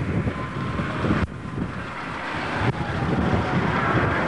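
Wind buffeting the camcorder microphone, a loud, uneven low rumble with a faint outdoor noise above it.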